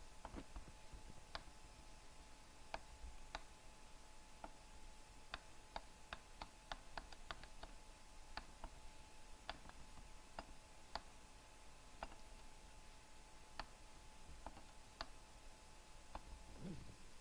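Faint, scattered clicks of a computer mouse button over a steady low hum, with a quick run of clicks about six to seven seconds in.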